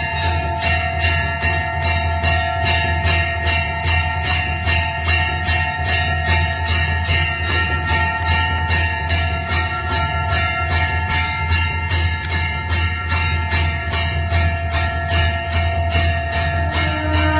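Temple bell rung continuously at about three strokes a second, each stroke's ringing carrying on into the next so that the bell's tones overlap. A steady low drone sits beneath it.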